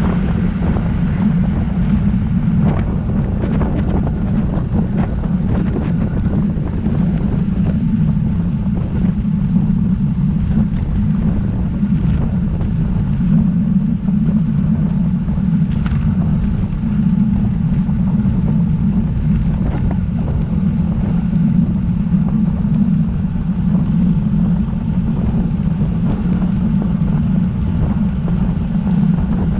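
Steady, loud wind noise rumbling on the microphone of a road bike rider at speed, with a few faint clicks.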